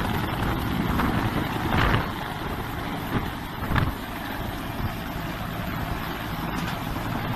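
Helicopter engine and rotor noise: a steady, noisy rumble.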